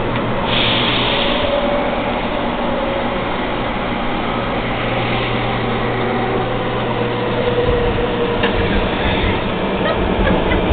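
Athens metro train running, heard from inside the car: a steady rumble and hiss of the moving train with a low hum, a brief hiss about half a second in, and a heavier low rumble setting in near the end.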